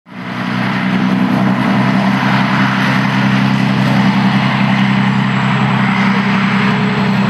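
Motor and propeller of a radio-controlled Fokker Dr.I triplane model running at a steady pitch as it rolls along the floor, a low even hum with a whirring hiss over it. The sound fades in during the first second.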